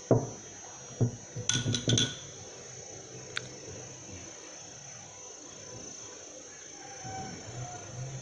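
A metal spoon clinks against a small glass bowl of oil-flour paste, a few sharp knocks in the first two seconds and a faint tap a little later. A steady high-pitched hum runs underneath.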